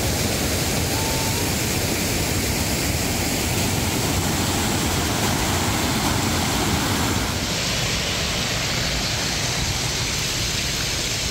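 A steady rushing noise with no clear rhythm or tone. About seven seconds in it changes character, losing some of its highest hiss.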